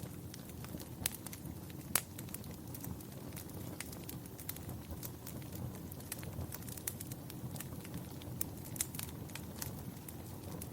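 Wood fire burning in a fireplace: a steady low rumble of flames with irregular crackles and pops, the sharpest about two seconds in and a quick cluster of them near the end.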